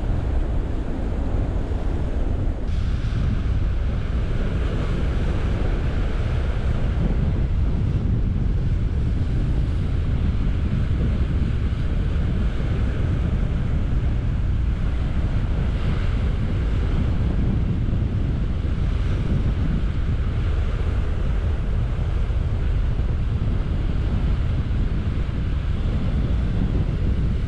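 Sea surf washing against the rocks, swelling and easing a few times, under a steady low rumble of wind buffeting the microphone.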